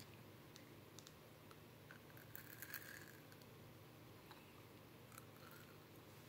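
Near silence: room tone with a few faint small clicks and crackles, clustered about halfway through.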